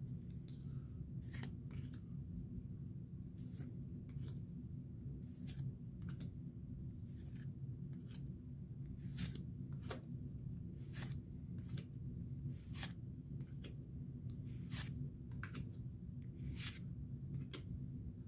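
Pokémon trading cards being flipped through one at a time from a freshly opened booster pack. Each card slides off the stack with a short, crisp sound every second or two, over a steady low hum.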